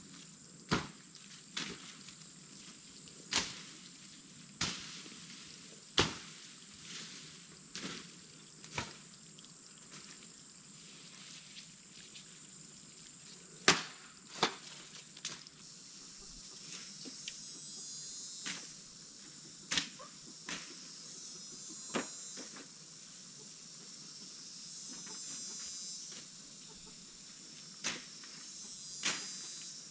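A steady high-pitched buzz of insects, growing denser from about halfway. Over it come sharp, irregular snaps or knocks every second or two, the loudest sounds present.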